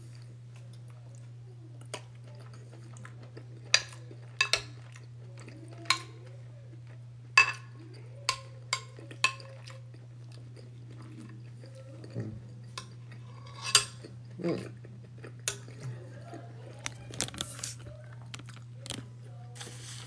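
A metal spoon clinks and scrapes against a glass food container as food is scooped up, in irregular sharp clinks, with chewing in between. A steady low hum runs underneath.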